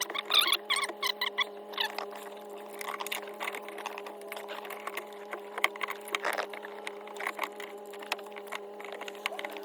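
Scattered clicks and light knocks of metal and plastic parts and hand tools being handled while a fuel pump assembly is refitted, over a steady low hum.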